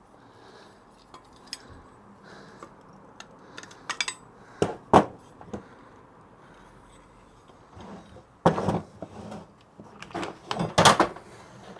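Small metal hardware clinking and clattering as screws and nuts are handled and tightened: scattered sharp clicks, with louder clatters about five seconds in and again from about eight and a half to eleven seconds.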